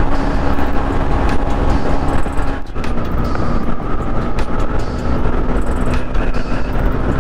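Motorcycle engine running at steady highway cruising speed, its hum nearly constant and easing slightly a little under three seconds in, under heavy wind rush on the rider's camera microphone.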